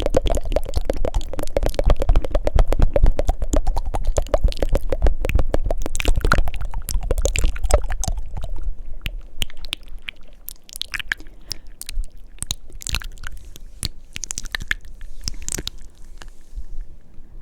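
Close-miked ASMR mouth sounds: rapid wet tongue fluttering for about the first half, then slower, sparser mouth clicks.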